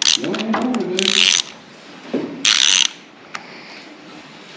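Socket ratchet clicking as a bolt is tightened: one spell of rapid clicks lasting about a second and a half, then a shorter spell a little after two seconds in.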